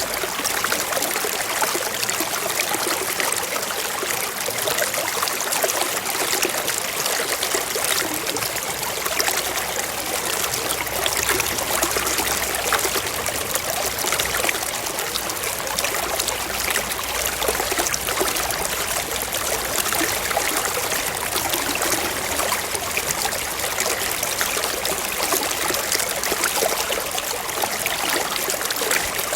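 Small brook running over rocks: a steady trickling and splashing rush of water.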